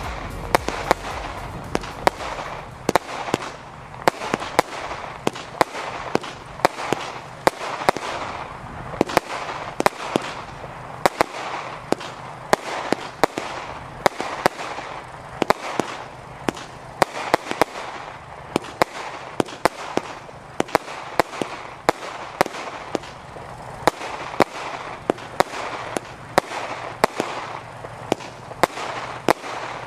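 WECO Final Showdown compound firework battery, with calibres up to 13 mm, firing shot after shot: an unbroken, irregular string of sharp bangs, roughly two or three a second, as small shells launch and burst.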